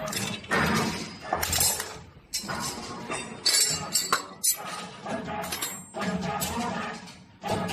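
Bent metal tubes clinking and rattling against each other as they are handled and laid on a stone surface plate, with music playing behind.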